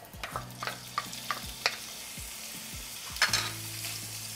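Diced raw bacon sizzling in hot olive oil in a ceramic-coated frying pan, stirred with a wooden spoon, with scattered sharp ticks through the sizzle.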